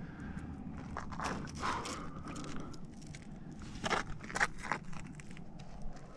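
Scattered scuffs and scrapes of a climber's shoes and hands on rock, with a few sharper clicks.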